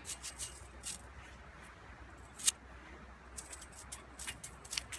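Metal Slinky Jr. coils clicking and clinking as the toy is worked between the hands, an uneven string of sharp clicks with the loudest about two and a half seconds in.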